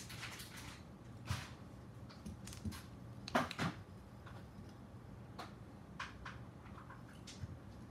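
Scattered light clicks, taps and rustles of hands handling an Emax Hawk 5 quadcopter's frame, parts and wiring, with a louder cluster of knocks about three and a half seconds in. A faint steady hum sits underneath.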